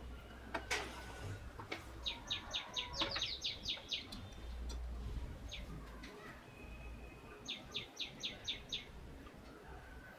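A small bird chirping two quick series of sharp, high notes, about five a second, with a few faint clicks before the first series.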